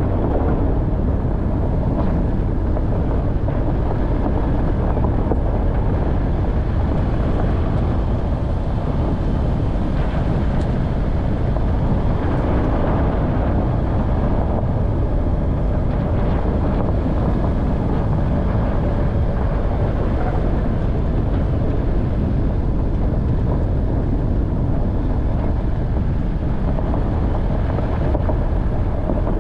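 Off-road vehicle driving on a rough track: steady engine note under a heavy low rumble of tyres and suspension, with no marked change in speed.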